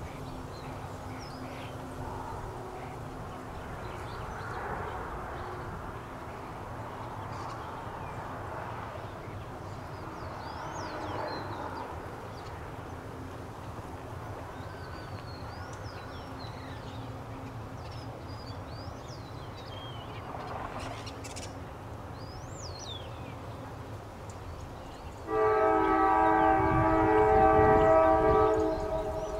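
Freight diesel locomotive horn sounding one chord blast of about three seconds near the end, by far the loudest sound. Before it, a steady low rumble of the loaded coal train's diesel locomotives, with small birds chirping.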